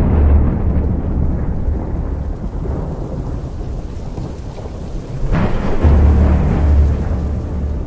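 Thunderstorm: steady rain with a heavy rumble of thunder at the start that fades away, then a sharp thunderclap about five seconds in that rolls on for a couple of seconds.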